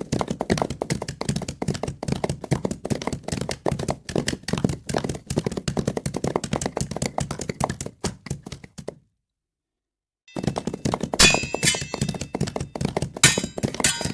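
Rapid run of thuds and taps, several a second, which cuts to dead silence for about a second just past the middle and then resumes.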